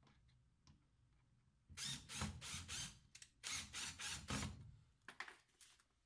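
Hands refitting the washing machine's drain pump parts: a quick run of mechanical clicking and rattling, about four strokes a second, starting about two seconds in and lasting about three seconds, with a few more clicks near the end.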